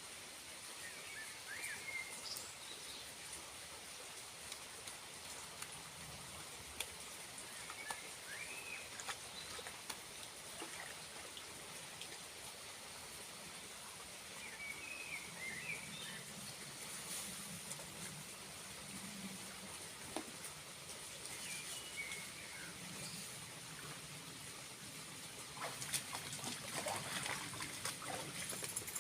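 Small waterfall with a steady trickle of water, brief bird chirps now and then, and a few splashes near the end.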